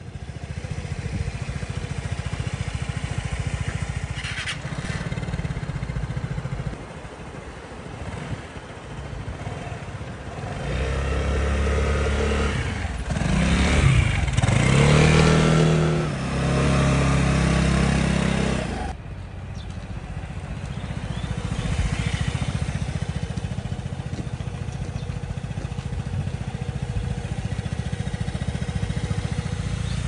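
Vespa scooter engine running with a steady low rumble. In the middle comes a louder stretch where the engine pitch falls and rises as it is revved, then it breaks off suddenly.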